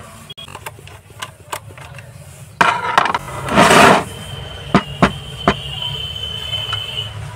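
Clicks and knocks of plastic as the top cover of a Usha electric iron is worked open with a screwdriver, with two brief rasping scrapes around the middle, the second the loudest.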